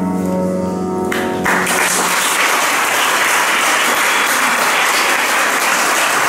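A live keyboard accompaniment holds a final chord that stops about a second and a half in, and an audience in the hall then applauds steadily.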